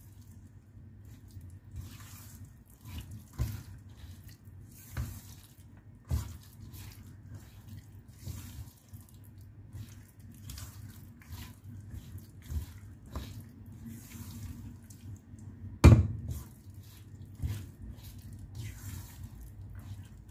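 Thick brownie batter being stirred with a spatula in a stainless steel mixing bowl: wet squelching and scraping, with several knocks of the spatula against the bowl, the loudest about sixteen seconds in.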